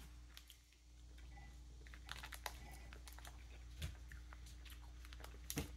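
Faint, scattered small clicks and ticks, a few times over a few seconds, against a quiet room with a low steady hum.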